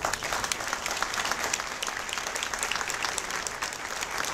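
Audience applauding: many hands clapping at once, in a steady dense patter that starts suddenly.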